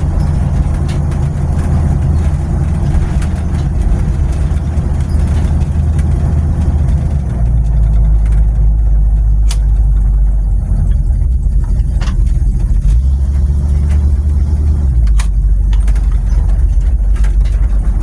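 Loud cabin noise inside a stripped-out Jeep with bare metal floors and no sound deadening, driving at about 25 mph: a low engine and drivetrain rumble with road noise. The low pitch shifts a couple of times along the way, and a few sharp clicks sound in the second half.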